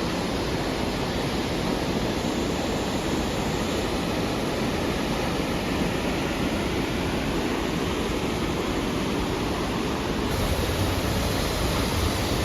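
Fast mountain river rushing through a rocky gorge: a steady, unbroken rush of water.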